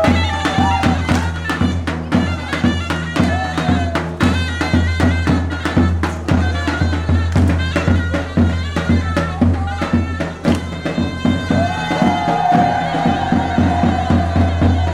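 Live folk dance music: a davul bass drum beating a steady dance rhythm under a loud, shrill reed wind instrument playing a winding melody.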